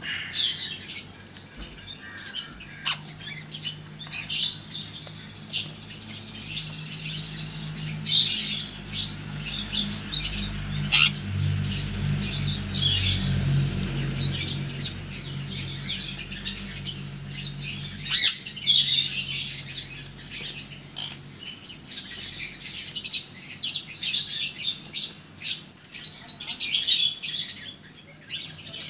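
Sun conures chirping and squawking in short, repeated high calls. A low steady hum runs underneath and stops about two-thirds of the way through.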